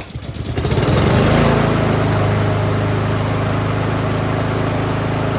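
Husqvarna push mower's small four-stroke engine, on a newly fitted replacement carburetor, catching just after a pull of the starter cord, rising in speed over about the first second and then running steadily.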